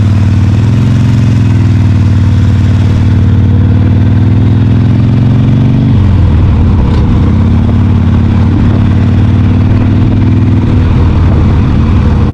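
Kawasaki Ninja 400 parallel-twin engine running under way, its note wavering slightly. Around six seconds in the note eases off briefly, then settles steady again.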